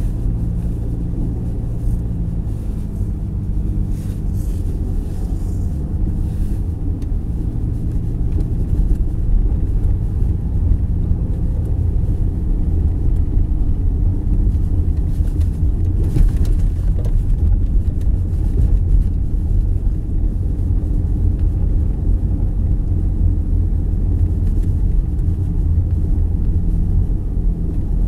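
Car interior noise while driving on snow-covered streets: a steady low rumble of engine and tyres on packed snow, a little louder from about nine seconds in.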